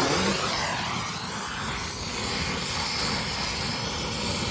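Gas torch flame hissing steadily as it is worked around a copper pipe fitting to heat the joint for soldering.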